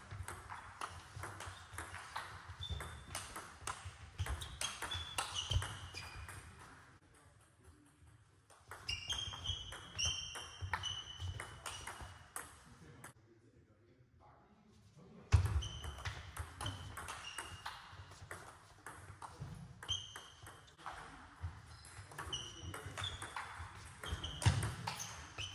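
Table tennis rallies: the plastic ball clicking in quick succession off bats and table, with short high squeaks in between. There are two brief lulls between rallies, and a single sharp knock about fifteen seconds in is the loudest sound.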